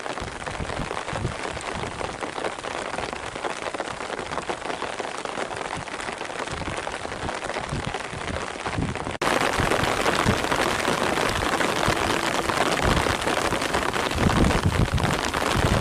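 Steady hiss of heavy rain, with scattered dull low thumps. About nine seconds in it cuts to a louder, brighter stretch of the same kind of sound.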